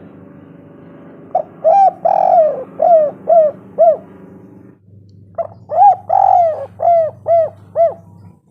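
Spotted dove cooing: two loud phrases, each a quick run of short coos around a longer rolling coo, with a pause of about a second and a half between them.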